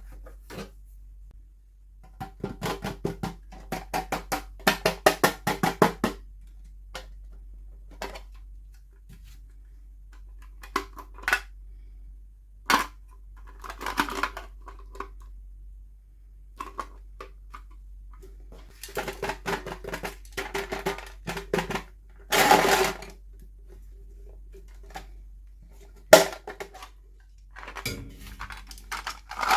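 Hands handling toy packaging and miniature dolls: runs of quick taps, clicks and rattles on hard plastic, with short pauses between them.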